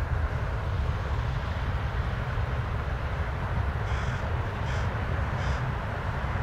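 Steady jet engine rumble from a Boeing 737 MAX 8's CFM LEAP-1B turbofans on departure, with a crow cawing three times in the second half.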